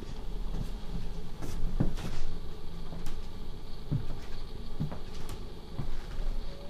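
Footsteps on a studio floor: a series of dull thumps about once a second over a low steady hum.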